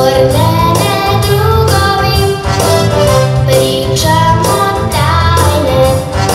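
A young girl singing a song into a microphone through a PA, over amplified instrumental accompaniment with a steady beat.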